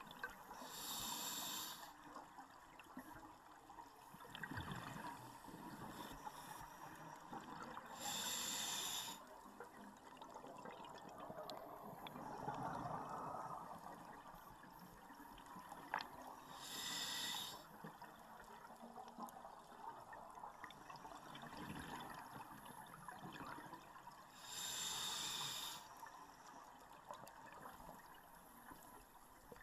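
Scuba diver breathing through a regulator underwater: four bursts of exhaled bubbles, each about a second long and about eight seconds apart, with quieter underwater noise between and a single sharp click about halfway through.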